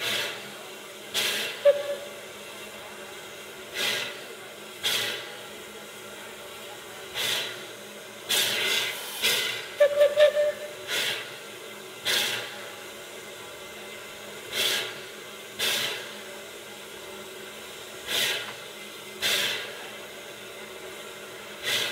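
Short hissing puffs of steam exhaust from a standing steam wrecking crane and locomotive under steam, mostly in pairs about a second apart and repeating every few seconds, over a steady background hiss. A brief squeak comes twice, with a cluster of sharp ticks near the middle.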